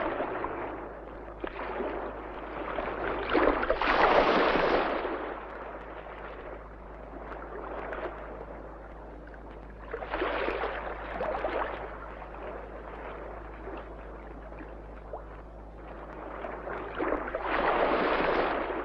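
Sea waves washing onto a shore, each one swelling up and falling back, about six seconds apart, with the biggest near the end. A steady low hum runs underneath.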